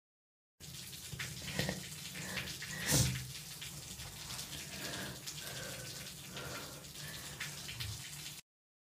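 Water running, with small clicks and splashes and a louder knock about three seconds in. The sound starts abruptly and cuts off abruptly just before the end.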